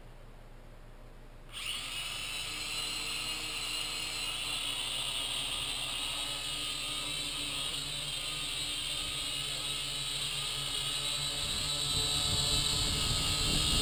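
Syma X5C quadcopter's small motors and propellers spinning up about a second and a half in, rising in pitch, then a steady high whine. It grows louder with a low rumble near the end as the drone lifts off and climbs.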